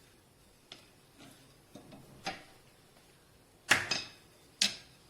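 Rolling pin clicking and knocking against the rolling surface while a chapati is rolled out: a few light clicks, then two sharper knocks in the second half.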